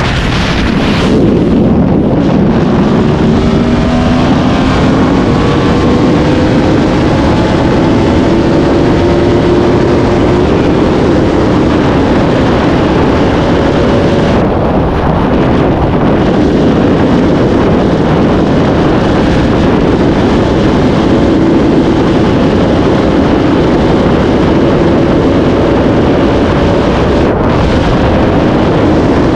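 Sport motorcycle engine pulling hard through the gears at high speed. Its pitch climbs steadily for the first several seconds and then holds high, under heavy wind rush.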